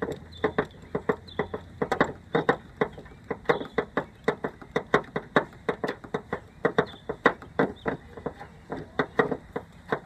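3/8-inch ratchet wrench with a 10 mm deep socket clicking as it turns a trunk latch bolt: a steady run of sharp clicks, about four a second.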